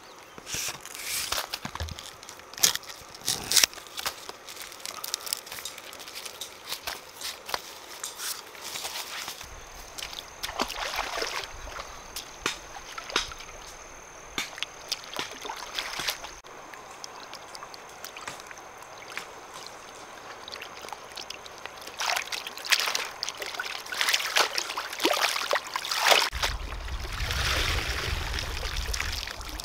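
Water sloshing and trickling, broken by many sharp clicks and knocks, with louder splashy stretches about ten seconds in and again in the last third.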